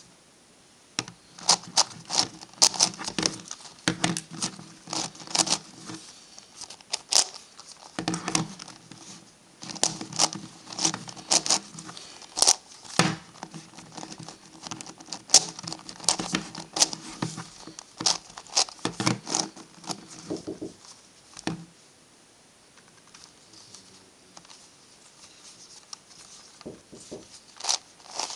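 Plastic MF8 Gigaminx puzzle being turned by hand: quick, irregular runs of clicks and clacks as its layers rotate. The turning lets up for a few seconds near the end, then starts again.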